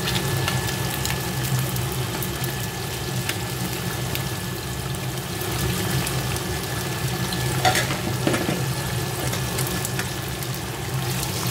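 Tilapia steaks deep-frying in a pan of hot oil, sizzling steadily, with a steady low hum underneath. There are a few sharp clinks of a metal spatula and fork against the pan as the fried-through pieces are lifted, the loudest about two-thirds of the way through.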